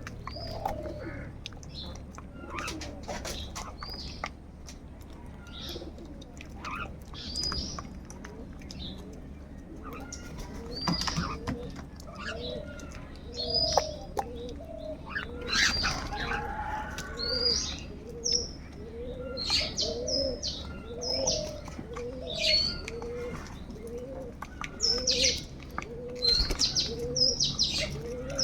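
Several birds calling at once: many short high chirps, a few louder harsher calls, and from about halfway through a short low call repeated steadily about one and a half times a second.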